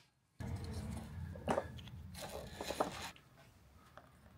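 Handling sounds of CNC machine parts being fitted by hand: a few light clicks and knocks over a low steady hum, which drops quieter near the end.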